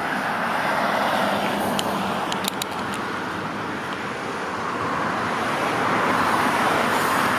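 Steady road traffic noise of cars passing, dipping a little in the middle and building again near the end, with a few faint ticks about two seconds in.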